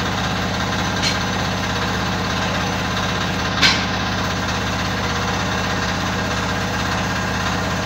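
An engine running steadily with an even low hum, with two short sharp clicks, one about a second in and a louder one a few seconds later.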